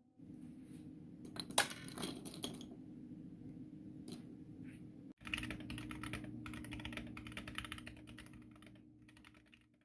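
Typing on a mechanical keyboard with Akko Jelly Black linear switches: rapid key clacks, a short burst about a second in and a longer run of steady typing after a brief break about five seconds in.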